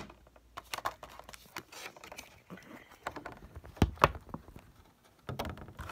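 Hard clear plastic packaging tray being handled: scattered clicks, taps and crinkles, with two sharper knocks about four seconds in.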